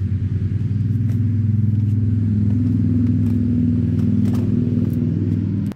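An engine running steadily with a low, fluttering hum that grows a little louder about a second in, then cuts off suddenly near the end.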